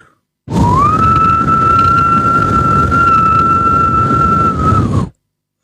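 Hair-dryer sound: a steady high motor whine over rushing air hiss. The whine rises briefly as it starts, holds for about four and a half seconds, then cuts off.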